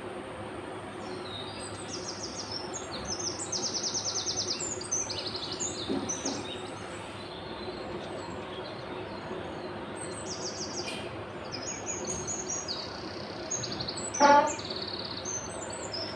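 Small birds chirping and trilling over a steady background hiss, with one short, louder cry about fourteen seconds in.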